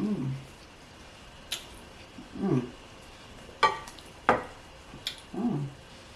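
Eating sounds during a mukbang: three short closed-mouth 'mm' hums, each falling in pitch, with a few sharp clicks of chewing and lip smacking between them.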